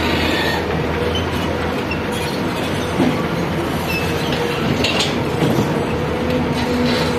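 Excavator working: its diesel engine running under load with hydraulic whine and occasional short metallic squeals.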